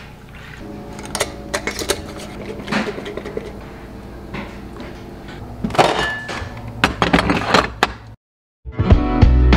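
Refrigerator dill pickles being handled: brine poured into a glass mason jar of sliced cucumbers, the jar's lid and glass clinking, then knocks as the jar is set into the refrigerator and the door shuts. Loud background music cuts in abruptly just before the end.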